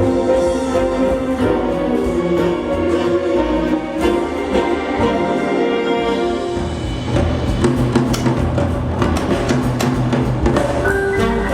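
Orchestral show music with percussion and drums, changing character about two-thirds of the way through.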